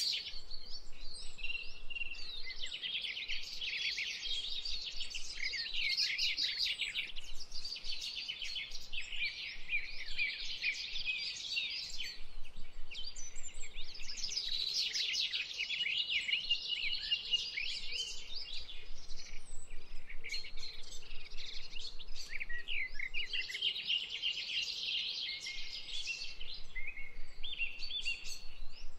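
Many small birds chirping and twittering together, a dense stream of quick high chirps and trills that comes in waves of a few seconds.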